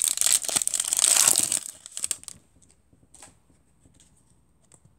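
Foil trading-card pack being torn open and crinkled by hand, a loud dense crackle that stops about two seconds in, followed by a few faint clicks.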